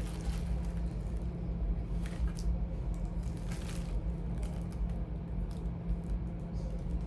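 Cords and small plastic items being handled and rummaged through, giving short rustles and light knocks a few times over a steady low hum.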